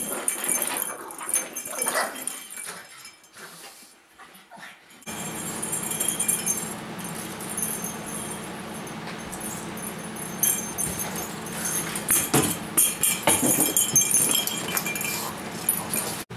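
Pugs whimpering and giving short yips, with scattered small high clicks. A steady low hum comes in about five seconds in.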